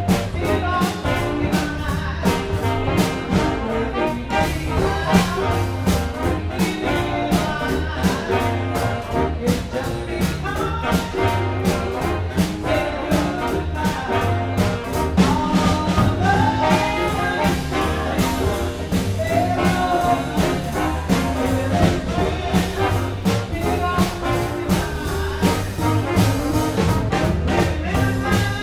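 Live jump blues band playing an up-tempo number: a horn section of trumpet, trombone and alto and baritone saxophones over piano, guitar, upright bass and drums keeping a steady beat.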